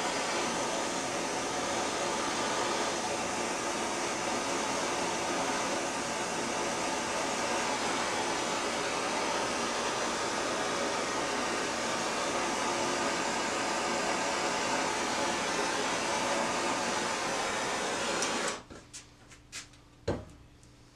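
Handheld gas torch burning with a steady, loud hiss, shut off quickly near the end. A few light clicks and a single knock follow.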